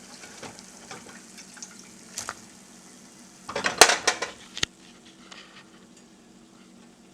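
Cookware and utensils clattering, with scattered clicks and a burst of sharp metallic clinks about three and a half seconds in, over a faint steady sizzle of frying oil.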